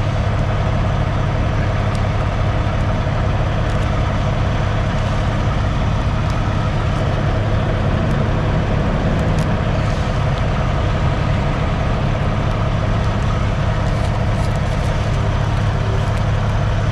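Heavy truck's diesel engine idling steadily, a constant low hum with a few faint clicks over it.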